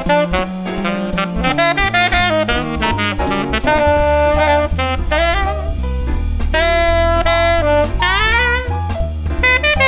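Conn 6M C melody saxophone playing a fast improvised jazz solo line, with an upward scoop about eight seconds in, over a backing track of bass and drums.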